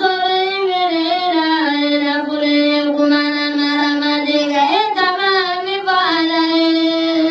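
A single high voice chanting in long held notes, the pitch stepping between a few levels with short melodic turns between them.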